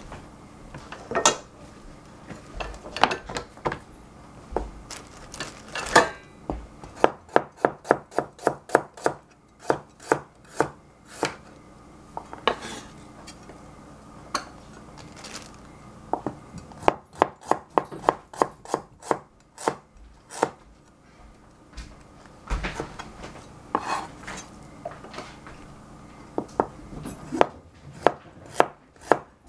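Chef's knife slicing radishes on a plastic cutting board: runs of quick, even knocks of the blade on the board, about three or four a second, with scattered single knocks between the runs.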